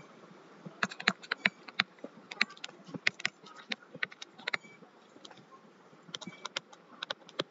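Irregular sharp clicks and taps on a laptop as handwriting is drawn on screen. They come in quick clusters, with a short lull in the middle.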